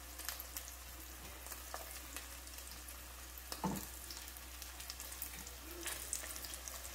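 Panko-breaded asparagus spears frying in a pan of hot vegetable oil: a steady sizzle with many small crackling pops. A brief low sound stands out about three and a half seconds in.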